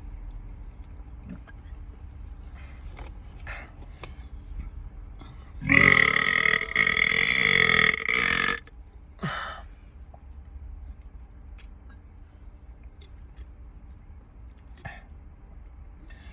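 One long, loud burp lasting about three seconds, starting about six seconds in, followed shortly after by a brief second burp.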